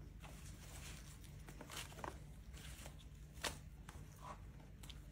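Faint, scattered light knocks and rustles of handling: whole green onions and halved jalapeños being placed into a plastic bowl of marinated shrimp and fish.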